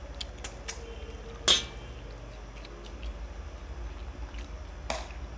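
Hands mixing and eating rice from steel plates: small scattered clicks and taps, with one sharp metallic clink about a second and a half in and a softer one near the end.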